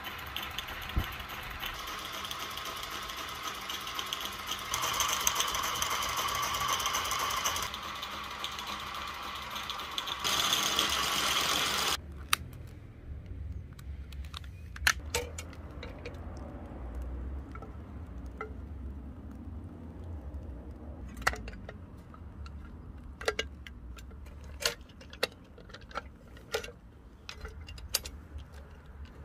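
Bassett-Lowke Enterprise live-steam model locomotive running on a test stand: a steady hiss of steam over the running gear, cut into several pieces. About twelve seconds in, the hiss stops abruptly. After that there is a low rumble with scattered sharp metallic clicks and taps as the model and its spirit burner are handled.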